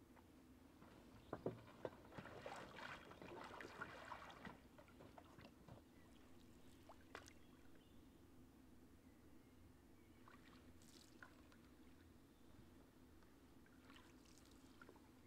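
Canoe being pushed off from a rocky shore with a wooden paddle: two sharp knocks about a second and a half in, then water splashing and trickling for a few seconds, followed by a few faint, widely spaced paddle strokes in calm water.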